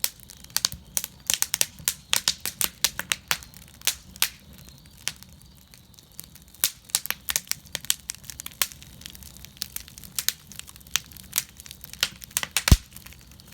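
Wood fire crackling in a fire cauldron: irregular sharp pops and snaps, several a second, that thin out for a moment near the middle, with one louder pop near the end.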